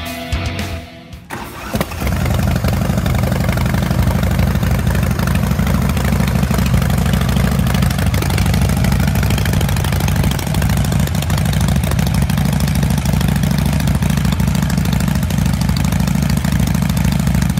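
A 2008 Big Dog Mastiff's S&S V-twin motorcycle engine starting about two seconds in, then idling steadily.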